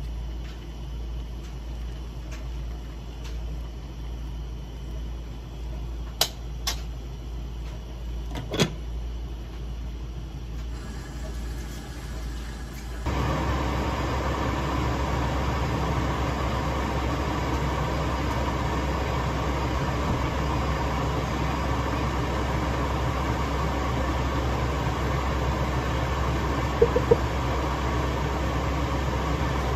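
Kimchi stew cooking in a pot on a gas burner. A few knocks of a wooden spoon against the pot come in the first half. About halfway through, a sudden change brings a louder steady hiss of the stew boiling under its glass lid, with a couple of light clicks near the end.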